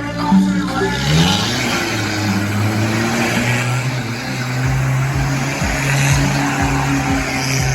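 A motor vehicle's engine revs up about a second in, then runs at a steady pitch under a loud rushing noise.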